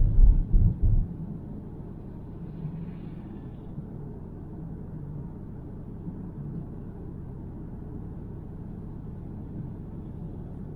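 Car road noise heard from inside the cabin while driving: a steady low rumble of tyres and engine, with a few low thumps in the first second.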